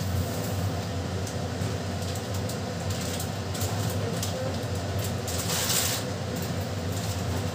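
Steady low hum and rush of a kitchen with a gas burner alight, with a few faint clinks and a brief louder rustling scrape about five and a half seconds in.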